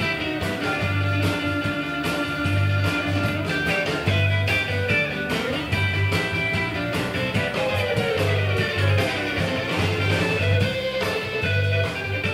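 Live rock-and-roll band playing an instrumental break: electric guitar over a steady pulsing electric bass and drums, with sliding notes about eight to ten seconds in.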